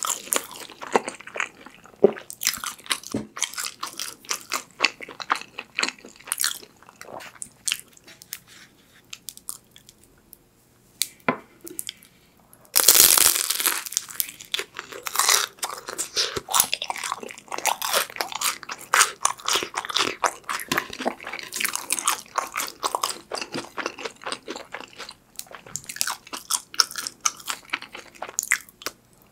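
Close-miked eating sounds: soft chewing and small clicks at first, then about thirteen seconds in a loud crunching bite into a fried sweet potato cheese stick, followed by steady crunchy chewing.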